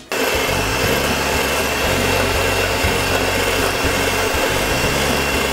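Electric hand mixer switched on at full speed, its twin wire beaters whisking egg whites in a stainless steel bowl as they begin to foam. The motor runs steadily, with a thin high whine over it.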